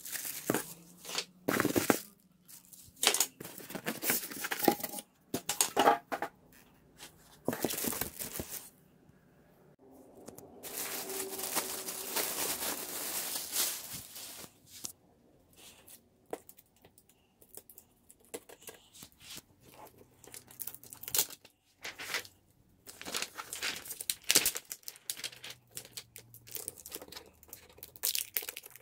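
Plastic packaging bags and the screen's protective film crinkling and rustling in irregular bursts as a new flat-screen TV and its stand are unwrapped, with a quieter, steadier stretch midway.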